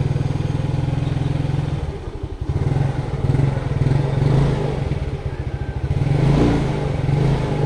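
Motorcycle engine running with a fast pulsing beat. It dips briefly about two seconds in, then is revved up and down gently a couple of times.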